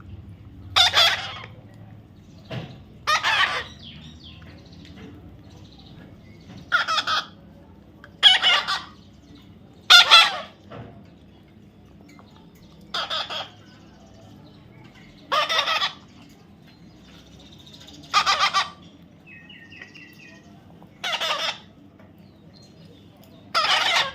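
A parrot repeatedly giving loud, harsh squawks, about ten short calls spaced two to three seconds apart.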